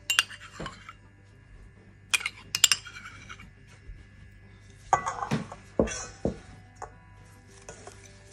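Metal spoon clinking and scraping against a stainless steel mixing bowl in short clusters: once at the start, twice about two seconds in, and a busier run of knocks around five to six seconds in.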